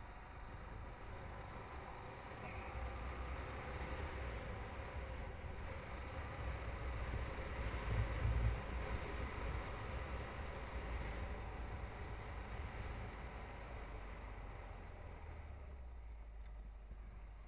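Motorcycle engine running at low speed, with wind rumbling on the bike-mounted camera's microphone. The rumble is heaviest about eight seconds in and eases near the end.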